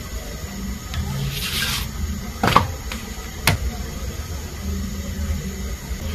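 Kitchen handling sounds: a brief hiss, then two sharp knocks about a second apart, like utensils or containers set down, over a low steady background hum.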